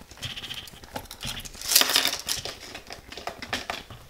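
Handling sounds of items being put into a small bag: light clicks and rustling, with a louder rasping rustle about two seconds in.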